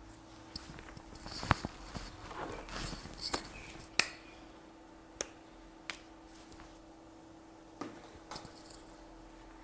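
Small hand tool scraping and picking at the hardened underfill resin on an iPhone 6 logic board where the NAND chip was removed, giving short scratchy rasps and a dozen or so sharp clicks and taps, the loudest about one and a half and four seconds in. A steady low hum runs underneath.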